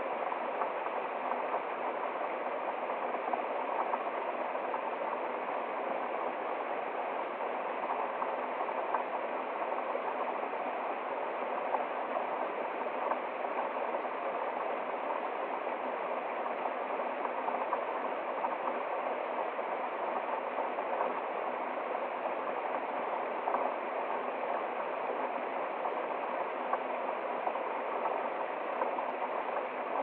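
Small woodland waterfall splashing over rocks into a shallow stream: a steady, even rush of water.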